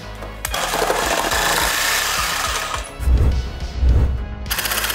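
A jigsaw running and sawing through wood, its blade stroking rapidly, under background music with heavy bass beats.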